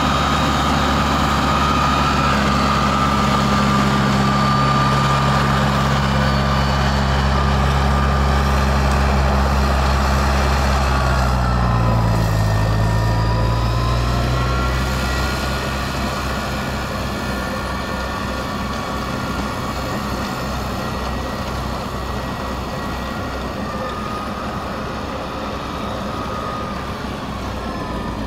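C9700H compact tractor's engine running steadily while its front-mounted rotary snowblower throws snow, with a higher whine over the engine note. About twelve seconds in the engine pitch dips and recovers, and it sounds a little quieter from about halfway on.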